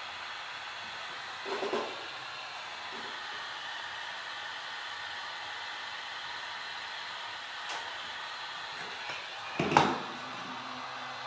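Temperature-controlled heat gun blowing steadily, warming the phone's glass to soften the screen adhesive. A short clatter comes about a second and a half in, and a louder knock near the end.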